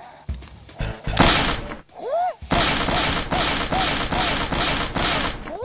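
Kung-fu battle cries from a man: a rising and falling yell about two seconds in and another long one at the end. Between them comes a fast run of dubbed swishing strike sound effects, about three a second, with short cries on each.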